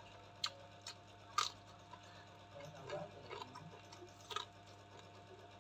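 A person eating close to the microphone: soft chewing with several sharp clicks of mouth or utensil, the loudest about a second and a half in.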